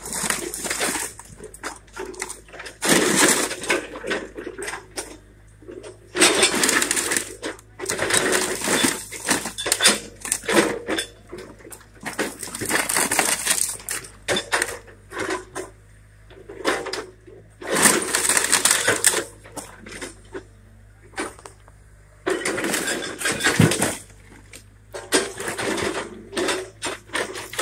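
Excavator demolishing a wood-frame house: repeated crashes of splintering wood and clattering debris every few seconds as the bucket tears into the wall and the pile, over a steady low hum from the machine.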